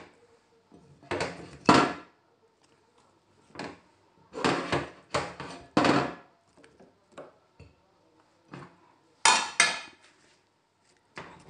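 Kitchen clatter of dishes and pans being handled, in several short, irregular bursts of knocks and clattering.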